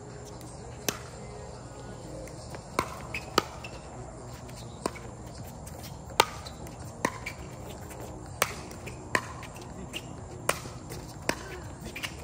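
Pickleball paddles hitting a plastic ball in a fast doubles rally: a string of sharp, hollow pops, some in quick pairs and triples, about one to three a second.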